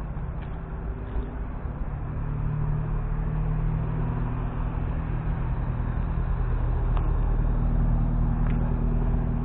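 Engine of a large road vehicle running steadily close by, a low even hum that grows louder over the first several seconds as the vehicle draws up and then holds.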